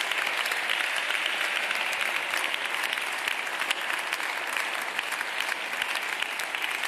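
Deputies applauding from their benches in a parliament chamber, many hands clapping steadily. The clapping eases off a little near the end.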